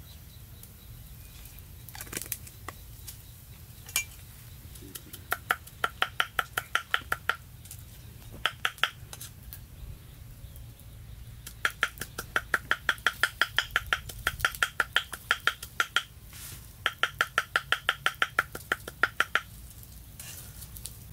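Cleaver chopping rapidly on a round wooden chopping block, mincing meat, in runs of quick, evenly spaced strikes with short pauses between.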